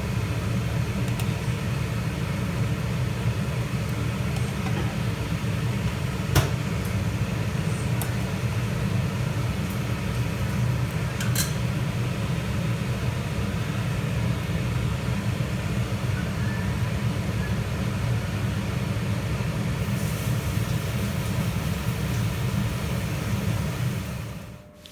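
A steady low droning hum with a single sharp click about six seconds in; the hum stops shortly before the end.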